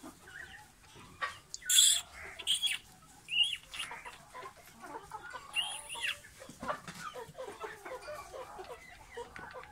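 Chickens clucking in a run of short low notes, with a couple of higher squeaky calls in the first half. Two brief rustling noises, the loudest sounds, come about two seconds in.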